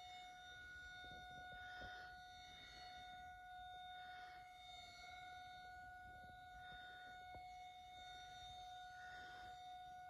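Rotating outdoor tornado warning siren sounding a steady tone, faint through a window, swelling every two seconds or so as the horn turns past.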